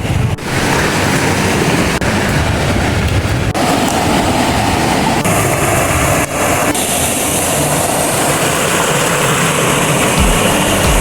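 Waterfall's rushing water: a loud, steady roar, changing abruptly a few times where short shots are cut together.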